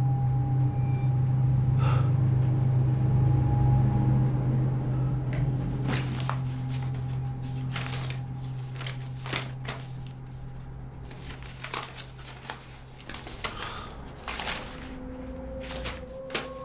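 Sheets of paper and photographs rustling and crackling as they are lifted out of a cardboard box and handled, in scattered short bursts. Under it a low steady drone fades away about two thirds of the way through.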